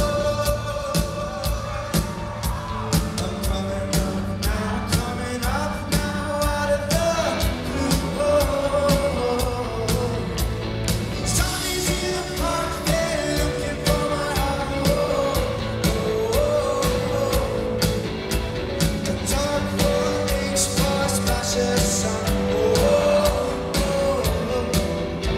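Rock band playing live: a lead singer over drums and instruments, with a steady drum beat.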